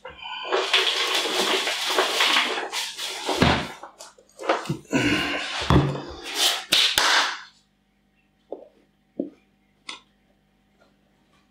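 Loose soil substrate being poured into a large glass jar, a dense rustling hiss for about three and a half seconds. A few shorter rustles and knocks follow as it is worked in, and near the end there are only faint small taps.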